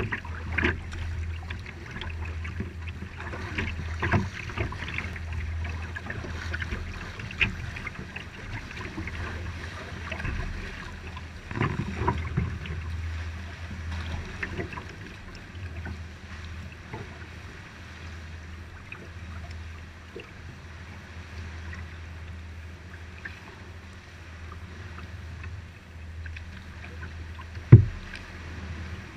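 Kayak paddle strokes splashing in seawater and water lapping at the hull, over a steady low rumble. A single sharp knock comes near the end.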